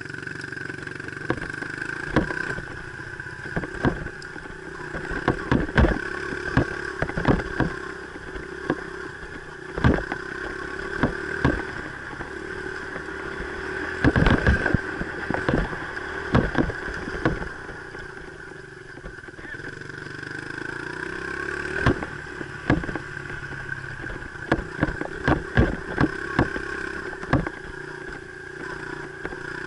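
Dirt bike engine running at a fairly steady speed while riding, with many irregular sharp knocks and clatter over it. The engine note dips briefly a little past the middle, then picks up again.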